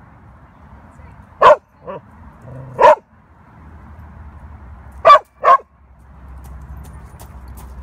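A dog barking off to one side: five short, loud barks in two groups, about two seconds apart.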